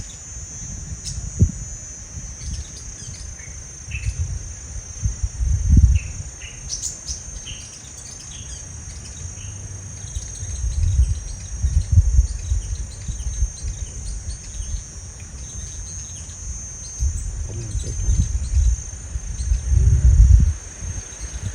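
Short high chirps of sunbirds come scattered through, over a steady high insect drone. Low rumbles on the microphone are the loudest sound, coming several times.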